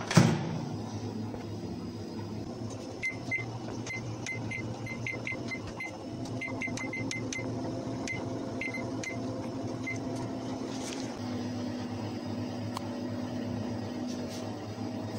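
Dawlance microwave convection oven: the door shuts with a sharp knock, then a string of short, high beeps as its keypad is pressed to set it preheating at 180 °C. The oven runs with a steady hum as its timer counts down.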